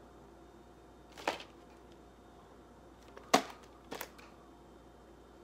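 A VHS tape being handled and turned over in the hands: three short, sharp clicks, the second, about three seconds in, the loudest.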